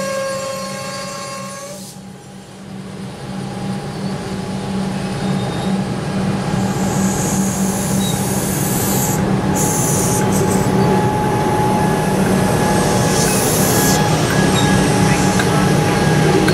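Electric suburban trains. For about two seconds a motor whine of several steady tones sounds as a train pulls away, then cuts off. After that comes a steady, rising rumble of another electric train running along the platform, with high wheel squeal around a third and four-fifths of the way through.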